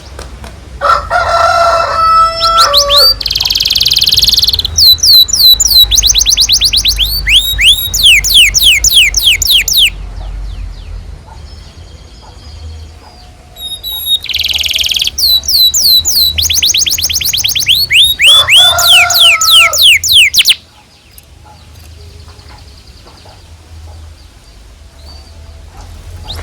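Domestic canary singing: two long song phrases of fast trills, rows of rapidly repeated sweeping notes, each opened by lower drawn-out notes and a short buzzy stretch. A quieter pause of a few seconds separates the phrases, and the song drops away near the end.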